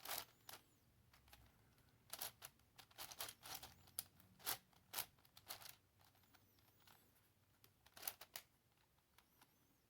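Faint, irregular clicks and clacks of a 3D-printed PLA twisty puzzle's pieces being turned by hand, in short clusters with pauses between them.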